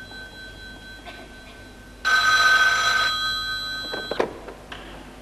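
An old desk telephone's bell ringing: one ring fading, then a second ring about two seconds in. The second ring cuts off abruptly about four seconds in as the handset is lifted, with a clunk.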